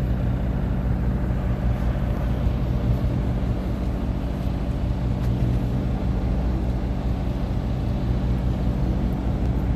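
Charter boat's engine running steadily, a low, even drone with no change in pace.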